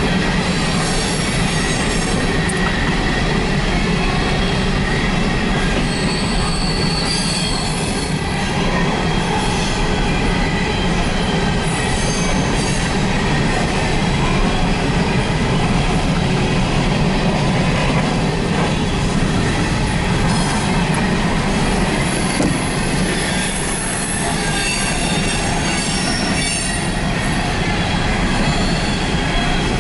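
Empty CSX open-top coal cars rolling steadily past, their wheels rumbling and clattering on the rails, with high wheel squeal coming and going.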